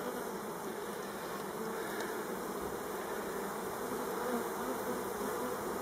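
Honeybees buzzing in a steady hum as they fly back to a Warré hive and crowd onto its landing board, several wingbeat tones overlapping.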